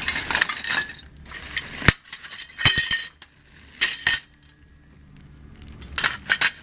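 Loose ceiling fan parts and hardware clinking and clattering as they are handled and rummaged through, with a few sharper knocks among lighter clinks.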